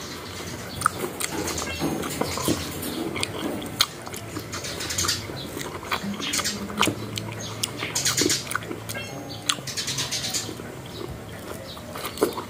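Wet mouth sounds of two people eating ripe mango slices: smacking, sucking and slurping, with many short wet clicks.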